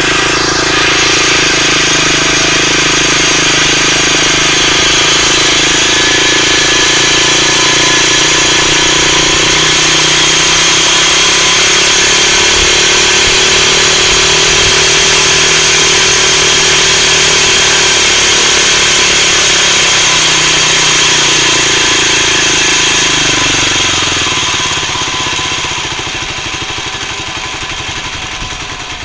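Kawasaki D-Tracker X's 250 cc single-cylinder engine running at a raised idle, with a noise that the owner questions as possibly abnormal cam-chain noise. About 24 seconds in, the engine speed drops and the sound gets quieter.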